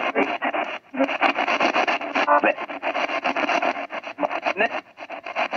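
Spirit box radio sweeping rapidly through stations: choppy bursts of static and clipped scraps of broadcast sound, many a second, with a brief drop just before a second in. The operator reads the fragments as spirit voices saying "must get Nick".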